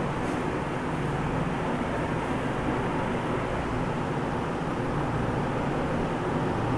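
Steady background noise: a low hum under an even hiss, with no sudden sounds.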